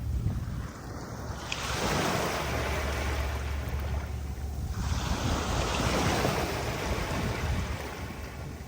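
Waves breaking and washing up the beach, two surges a few seconds apart, over a steady low rumble of wind on the microphone.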